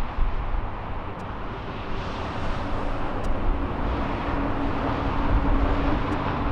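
Jet airliner engine noise: a steady rush, with a faint low steady tone coming in about halfway through.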